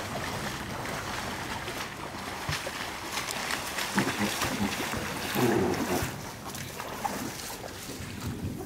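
Water sloshing and splashing as men wade through flooded timber and push an aluminum johnboat along, with louder moments about four and five and a half seconds in.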